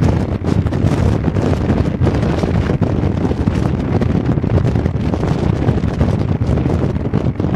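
Loud, steady wind buffeting the microphone from riding in an open vehicle, with a low rumble beneath it.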